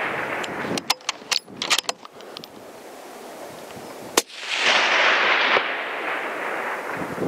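A suppressed Sako Finnlight bolt-action rifle in .260 Remington fires once about four seconds in: a sharp crack followed by about a second of rolling echo. Before it, a few sharp clicks as the bolt is worked to chamber another round for a follow-up shot.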